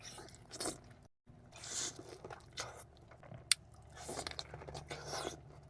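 Close-miked mukbang eating of a buttery onion boil: bites and chewing in short bursts, with one sharp click about three and a half seconds in.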